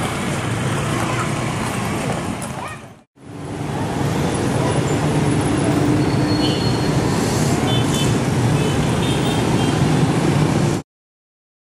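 Jammed street traffic: many motorbike and car engines running together in a steady wash of road noise. It drops out for a moment about three seconds in, comes back, and cuts off suddenly near the end.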